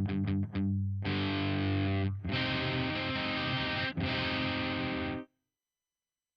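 Distorted electric guitar through the Audiority L12X amp-simulator plugin, a Marshall JCM-style high-gain tone: a run of quick muted strokes, then three long ringing chords, cutting off cleanly about five seconds in.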